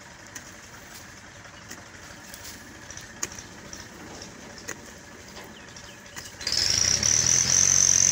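Quiet outdoor air with a few light clicks, then about six and a half seconds in an engine suddenly starts running loudly, with a low hum and a high steady whine.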